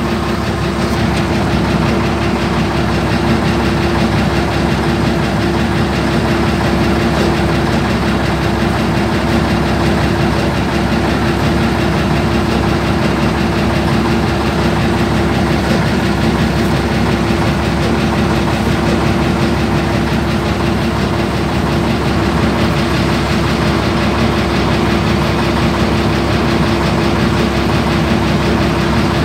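Heavy diesel engine of the piling crane running steadily at constant speed, heard from inside the operator's cab, with a steady drone and no hammer blows.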